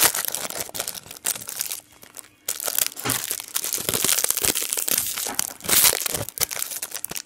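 Clear plastic sleeve crinkling and crackling in irregular bursts as a phone flip cover is unwrapped and pulled out of it, with a short lull about two seconds in.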